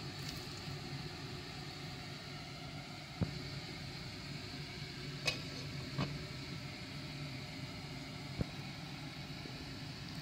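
A glass pot lid clinks against a metal cooking pot as it is set on, with two sharp clinks about halfway through. A couple of lighter knocks come before and after, over a steady low hum.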